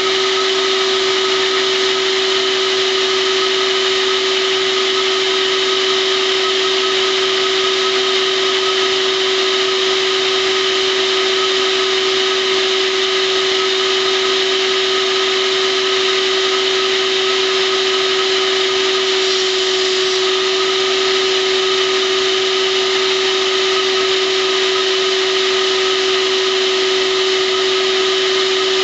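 A vacuum cleaner running loud and steady, a constant whine over rushing air, driving a Lego air engine.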